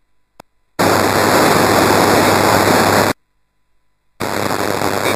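Amateur radio FM receiver static: loud hiss that switches on abruptly about a second in, cuts off about two seconds later, then returns near the end. This is the squelch opening and closing on a weak ISS downlink signal.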